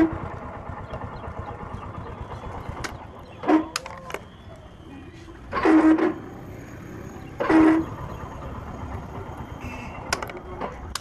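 Hero HF Deluxe 100cc motorcycle engine running, with short harsh 'khar' bursts from the electric starter motor each time the self-start is pressed, four times: the starter motor noise fault.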